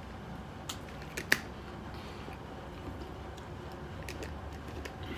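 A few sharp clicks from a plastic water bottle being handled, the loudest about a second and a half in, over a steady low room hum.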